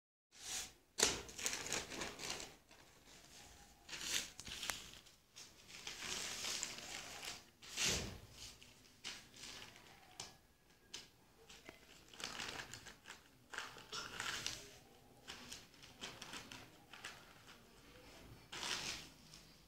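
Newspaper being folded and creased by hand: irregular rustling and crinkling of paper, with a few louder strokes as the folds are pressed down.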